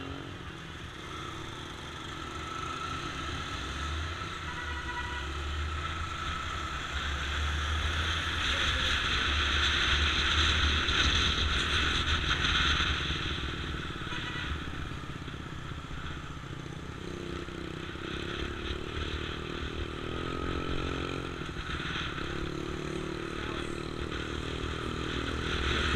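Motorcycle engine running as heard from the moving bike, with wind noise on the microphone. It builds as the bike pulls away from a stop, is loudest about ten seconds in, then eases off.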